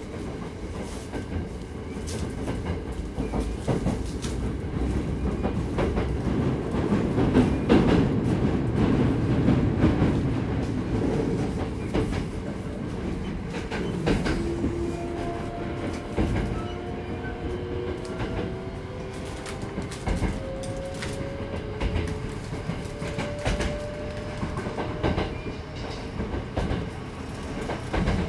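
Hankyu 8200 series electric train running, heard from on board: a steady rumble with frequent wheel clicks over rail joints. From about halfway, faint tones from the Toshiba GTO-VVVF inverter and traction motors drift in pitch.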